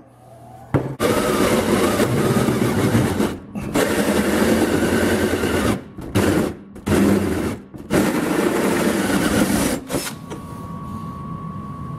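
Cordless drill boring through a flat steel bar, running loud under load in long stretches with a few brief pauses, then stopping about ten seconds in, leaving a fainter steady hum. The bit cuts badly and is called the most horrible bit ever used.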